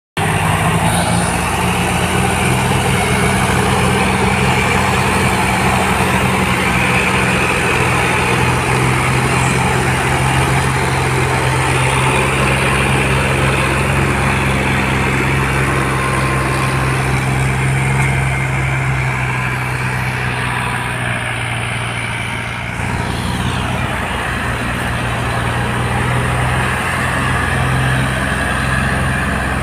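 Several diesel farm tractor engines running steadily under heavy load, a continuous low drone, as they tow a fully loaded sugarcane trailer through mud.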